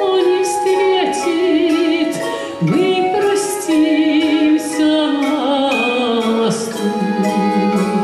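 Russian folk-instrument orchestra of domras and balalaikas playing, with plucked strings and tremolo, under a woman singing a slow romance with vibrato.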